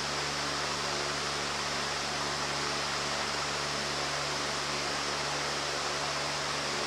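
Steady hiss with a low hum underneath, unchanging throughout, with no distinct knocks or clicks.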